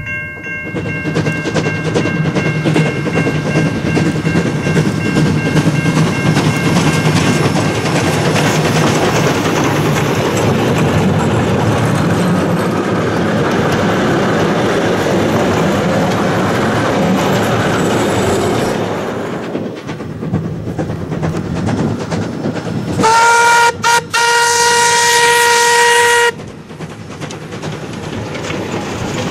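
Steam train rolling past close by, carriage wheels clattering over the rail joints, with a fainter whistle note trailing off in the first seconds; the sound then drops away. Near the end the steam locomotive's whistle blows, a short toot followed by a longer blast of about two seconds.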